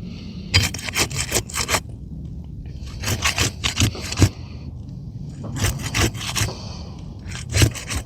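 Pry bar scraping under an asphalt shingle to break its tar sealant strip, in four bouts of quick rasping strokes.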